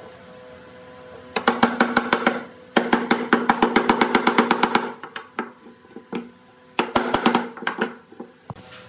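Rapid runs of sharp wooden knocks, about ten a second, as wooden chair parts are knocked together. There are three bursts, with a few single knocks in between.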